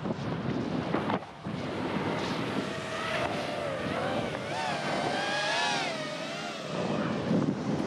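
Wind rushing over a ski-run camera and skis hissing through snow at speed. From about three seconds in, a wavering whine rises and falls over it for about four seconds.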